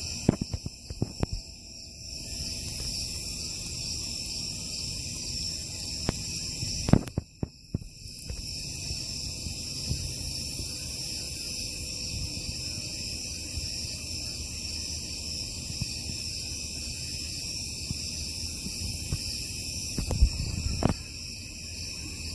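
Steady outdoor chorus of crickets and other insects, a continuous high-pitched trilling drone, with a few sharp thumps near the start, about seven seconds in and again near the end.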